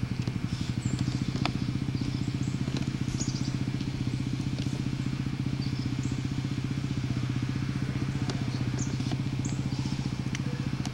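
Motorcycle engine running steadily at idle, a fast, even pulse at a constant pitch.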